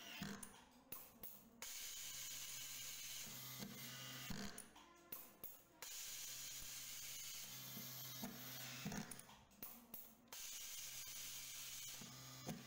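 Automatic screw feeding and fastening robot at work. Stretches of steady hiss with a low hum alternate with clicks and short mechanical bursts as each screw is driven, in a cycle of about four seconds.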